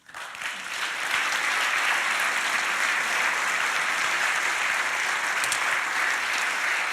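Audience applauding, starting suddenly and swelling within about a second into steady clapping.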